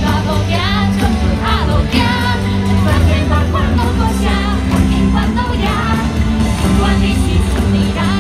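Amplified musical-theatre song: a singer with a wavering vibrato over a loud backing track with a heavy, steady bass.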